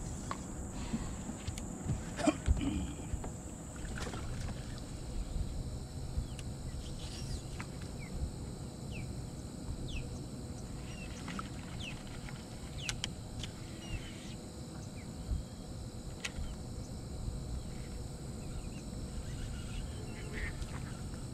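Bass boat sitting on open water: a steady low rumble of wind and water against the hull. Occasional light clicks come from the angler's rod and tackle as he casts and works the lure, and there are a few faint, quick high chirps.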